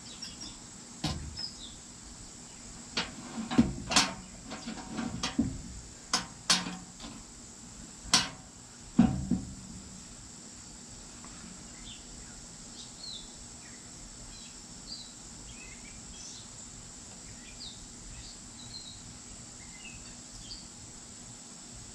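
Metal clinks and knocks, about ten in the first nine seconds, as a lead-casting ladle and a hinged sinker mould are handled. The rest is a quiet stretch with a steady high insect buzz and scattered bird chirps while the molten lead is poured.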